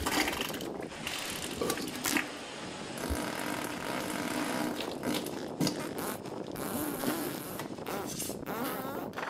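An unexplained mechanical grinding noise with a wavering low tone and scattered clicks, of the kind passed off as the 2012 'strange sounds' in the sky.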